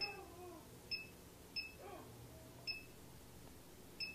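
Optimum G2.1 blender's control panel beeping as its buttons are pressed to pick a preset program: five short, identical high beeps at uneven intervals.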